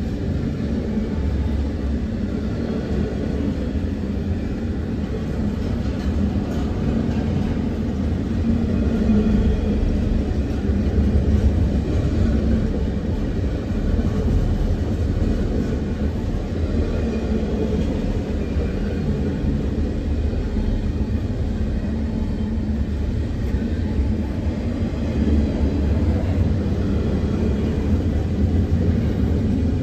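Double-stack intermodal freight cars rolling past: a steady rumble of steel wheels on the rails, swelling a little now and then as the cars go by.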